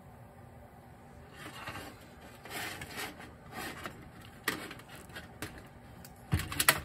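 Handling noise from a Honda GL1500 Gold Wing carburetor and small parts on a metal parts tray: rubbing and scraping as the carburetor is picked up and turned over, then a few sharp metallic clicks and knocks, loudest in a quick cluster near the end.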